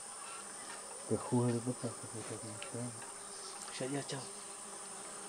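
Flying insects buzzing: a low, wavering buzz comes and goes from about a second in to three seconds and again near four seconds, over a faint steady high-pitched hum.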